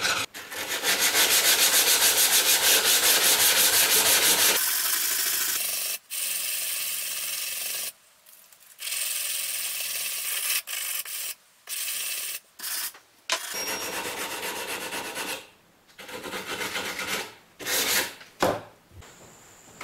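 Hand sanding of a metal engine casting with a sanding block, blending filed-down epoxy filler into the surface. Fast, loud scrubbing strokes for about the first four seconds, then softer sanding in short runs with breaks between them.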